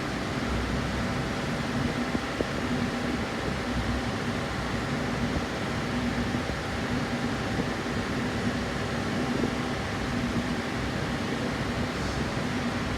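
Steady mechanical hum like a running fan, with a low tone that swells and fades every second or so.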